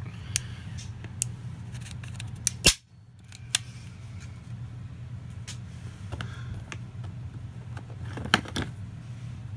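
Hard plastic clicks and knocks as tools are handled and fitted into a molded plastic tool case tray, over a steady low hum. The loudest is a sharp click about three seconds in, followed by a brief dropout, with a quick cluster of clicks near the end.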